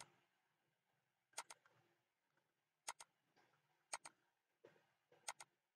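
Computer mouse clicking: four pairs of short, sharp clicks about a second or so apart, in near silence.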